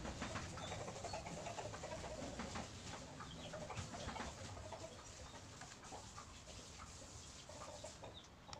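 Faint clucking of chickens with other birds, and short scratchy ticks from a felt-tip marker being worked over paper.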